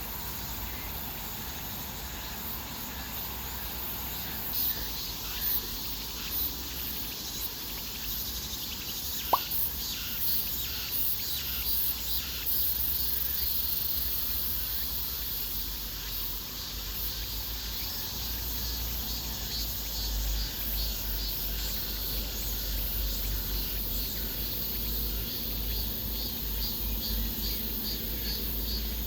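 Insects chirring outdoors, a high, rapidly pulsing buzz that keeps going, with a low rumble and scattered light clicks. One sharp click comes about nine seconds in.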